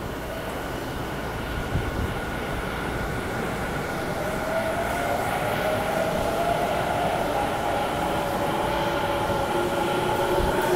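Electric subway train pulling out of the platform, its motors whining in several tones that rise slowly in pitch as it gathers speed, over the rumble of the running train.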